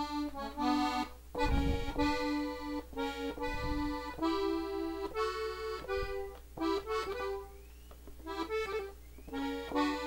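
Gabbanelli button accordion, an E accordion in the key of D, played slowly on the treble buttons: a single melody line of separate notes with a short gap about eight seconds in.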